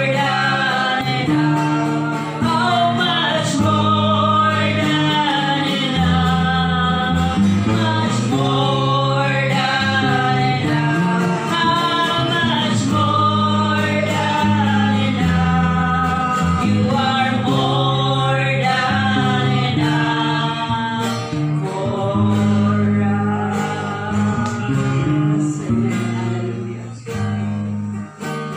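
A woman singing a worship song into a microphone while strumming her acoustic guitar. Near the end the singing stops and the guitar strums on alone.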